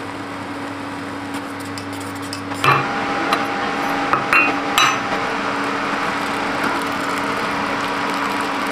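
Ceramic teacups set down on a stone countertop: a few sharp clinks and knocks between about three and five seconds in, over a steady hiss and low hum.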